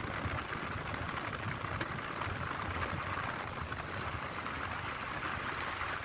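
Steady rush of wind and road noise from a Hero XPulse 200 motorcycle riding along a highway, heard as wind on a handlebar-mounted microphone.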